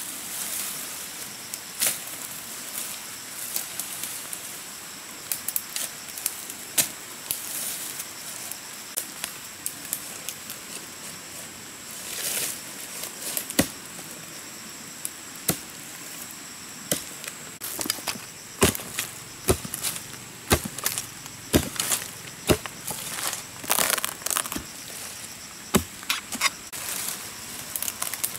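Machete blade chopping and slashing through undergrowth and a sapling's wood: irregular sharp strokes, coming thicker and louder in the second half, over a steady high insect drone.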